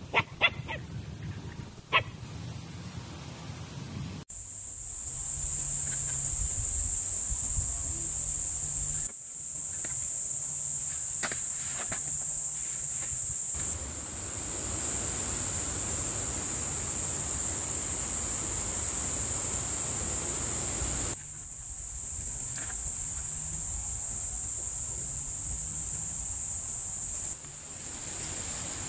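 Steady, high-pitched drone of insects in the forest, changing abruptly several times. A few sharp knocks come in the first two seconds.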